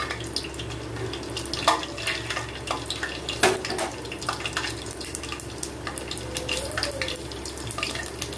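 Tempering spices sizzling in hot oil in a stainless steel pot, with a steady hiss and irregular crackling pops from the seeds, a couple of them sharper and louder.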